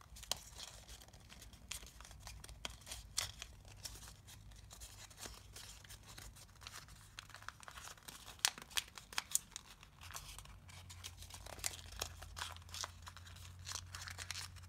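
Origami paper crinkling and crackling under the fingers as thick pleated layers are pressed, pinched and a flap is tucked into a pocket. It comes as irregular crisp snaps and rustles.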